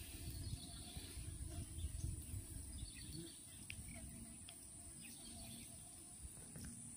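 Wind buffeting the microphone in uneven low gusts, with a steady high hiss and faint, scattered bird chirps.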